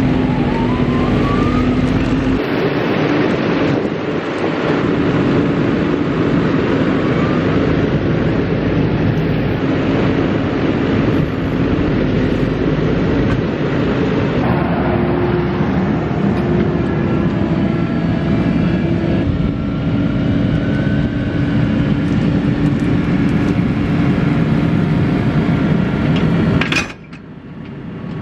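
Engines of farm machinery running steadily and loudly, in a series of short clips whose engine note changes abruptly every few seconds, with a brief drop near the end.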